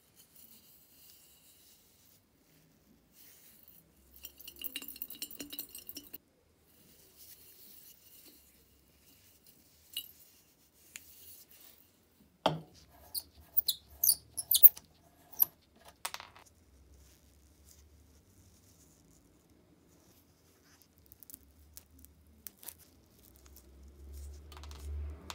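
Parts of an old rusty brass stove being handled and taken apart by gloved hands: scattered scrapes and rattles, a cluster of sharp metallic clicks and taps a little before halfway through, and soft fumbling near the end.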